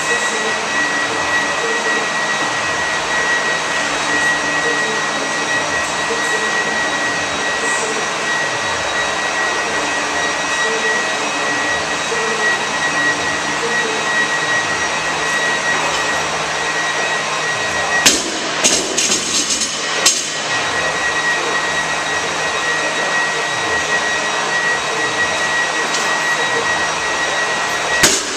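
Steady rushing background noise with a high whine. About two-thirds of the way through come two sharp knocks, and near the end a loaded barbell with bumper plates hits the rubber gym floor and bounces.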